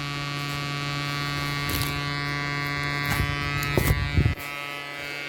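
Steady mains buzz with many overtones coming from a Sound Bridge SB-3500 DP amplifier through a small test speaker: the audio disturbance the repairer blames on the driver board being fitted with two 2200 µF filter capacitors where one is needed. A few short handling knocks come near the end.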